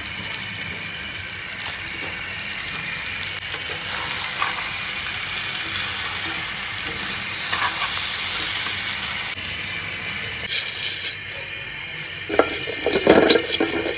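Whole shell-on prawns sizzling in oil in a pan and being stirred with a metal spatula, a steady hiss. About nine seconds in the sizzle breaks off, followed by short sharp crackles and a few scrapes and knocks near the end.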